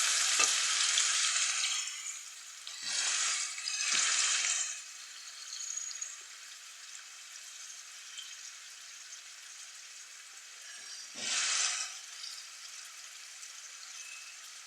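Onions sizzling in hot cooking oil in a pot. The sizzle is loudest at first and settles within a couple of seconds into a quieter steady sizzle, which flares up briefly twice a few seconds in and once more later on.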